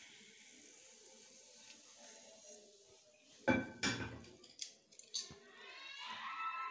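Dishware knocking: one loud knock about three and a half seconds in, then a few lighter clicks, over a faint steady hiss. A wavering pitched sound comes in near the end.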